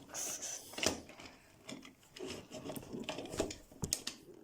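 Plastic parts of a one-step-changer Transformers Bumblebee toy clicking and scraping as it is folded by hand from robot into car mode. The handling is irregular, with a few sharper clicks among the rubbing.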